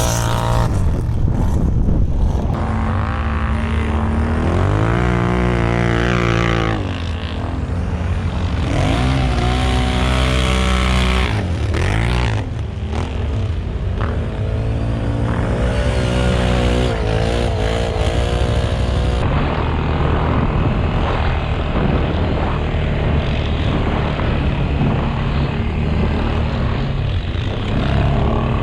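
ATV engine revving up and down, its pitch rising and falling several times, then running more steadily in the later part.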